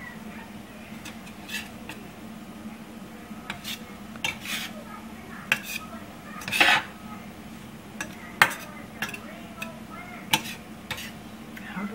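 Spatula stirring and scraping scrambled eggs around a stainless steel frying pan, with irregular scrapes and clinks of the spatula against the pan, over a steady low hum.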